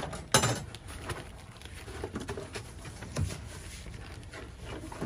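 Cardboard box and loose junk being handled in a pickup truck bed: a sharp knock about half a second in, then light clicks, scrapes and a few dull knocks as the box is gripped and shifted.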